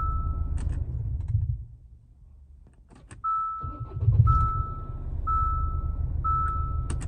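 Diesel Kia Sorento engine running, cutting out about a second and a half in, then starting again with a sudden jump about three seconds in and running on; start-up and shut-down are where this engine is said to give a thumping knock. A dashboard warning chime beeps about once a second.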